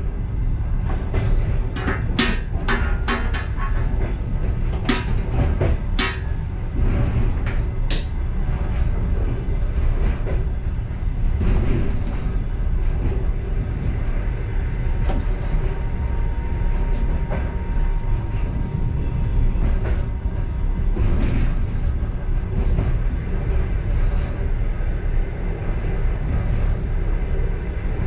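Passenger train running on the rails, heard from inside its last car: a steady low rumble, with a run of sharp clacks and knocks in the first several seconds. A faint steady whine comes in for several seconds around the middle.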